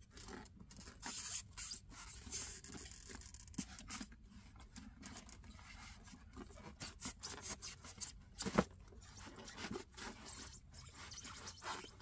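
Handling noise from opening a white foam packing box: irregular scraping, rubbing and rustling as the lid is worked loose, with small knocks and one sharper knock about two-thirds of the way through.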